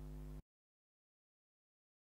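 A steady low electrical hum that stops abruptly a fraction of a second in, then complete silence.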